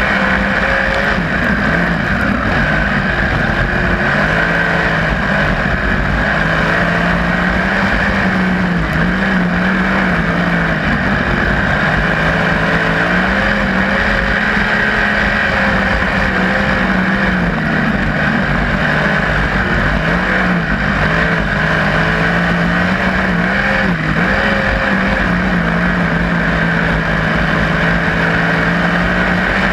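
Onboard sound of a 360 winged sprint car's V8 engine running hard while lapping a dirt oval, its pitch dipping and climbing back every few seconds as it goes through the corners and down the straights.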